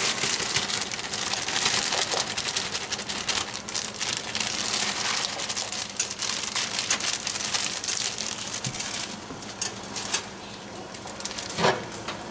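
Baby carrots shaken from a plastic bag into a pot of simmering broth: a dense patter of small splashes and plops, mixed with the bag crinkling, for most of the time. It eases off after about nine seconds, and a pot lid knocks near the end.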